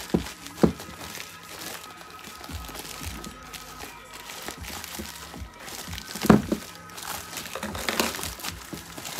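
Shipping box and packing material being handled: crinkling and rustling with a few sharp knocks, the loudest about half a second in and again about six seconds in, over quiet background music.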